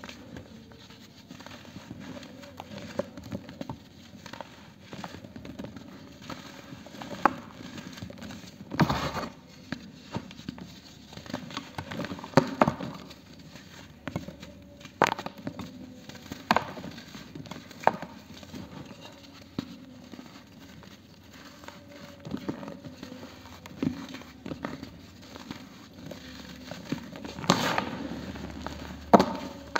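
Dry cast-cement disc and loose cement powder being crumbled and broken by hand: a gritty crunching and sifting with sharp, irregular cracks every second or two.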